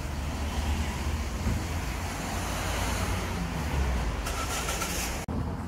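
Street traffic noise: a steady low rumble of road vehicles, with a brief high tone about four seconds in.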